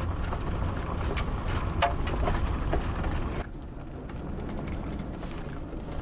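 Cabin noise of a Dodge Coach House Class B camper van driving on a gravel road: a steady rumble of tyres and engine with a few sharp knocks and rattles. About three and a half seconds in it drops suddenly to a quieter, steady low hum.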